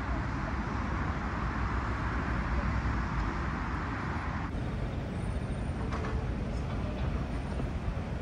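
City street ambience: a steady wash of road traffic noise, which shifts to a lower, thinner hum about four and a half seconds in.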